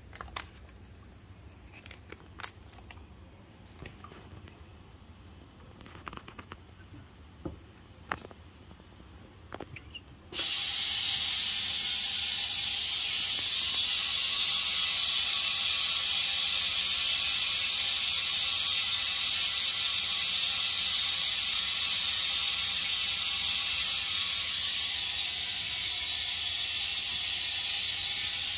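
A few faint clicks and knocks, then about ten seconds in a loud, steady hiss of air starts suddenly as vacuum is drawn on the leak tester's chamber holding the packaging pouches. The hiss eases slightly near the end.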